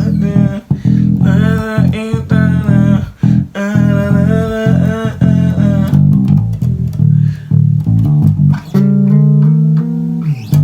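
Electric bass guitar played in a quick run of notes and chords, moving in chromatic steps with a few slides.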